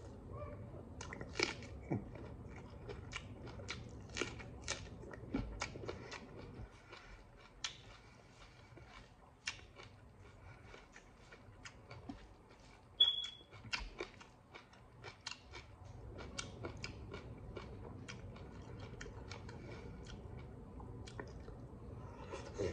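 Close-up chewing of rice and fish eaten by hand, with crunchy bites of raw Thai eggplant and many wet mouth clicks and smacks. A short high squeak comes a little past halfway.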